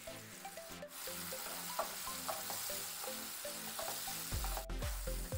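Chopped vegetables and peanuts sizzling in hot oil in a frying pan just after lime juice is poured in, while a wooden spatula stirs them. Light background music with short plucked notes plays along, and a low rumble comes in near the end.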